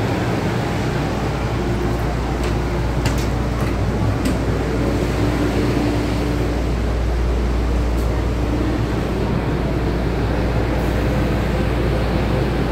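Steady hum of an MTR M-Train car's air-conditioning and auxiliary equipment while the train stands at the platform with its doors open, with a few light clicks about two to four seconds in.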